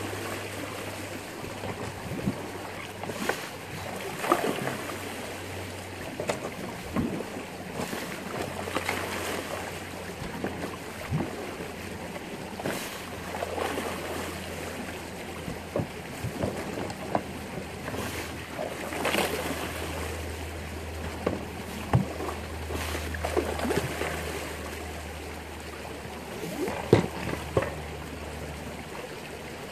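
Prototype suction dredge at work: water and gravel gush from its plastic pipe into a bucket sieve, with frequent short knocks and splashes of stones, over a steady low hum from its pump that fades out near the end.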